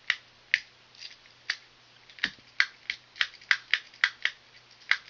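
A run of sharp, uneven clicks and ticks, about three a second, from wires and small parts being handled at an HVAC air handler's low-voltage control panel, over a low steady electrical hum.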